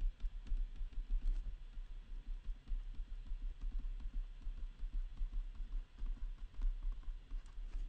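Stylus tapping and clicking on a tablet as tick marks and numbers are drawn, over a low, uneven rumble of the pen and desk knocking against the microphone.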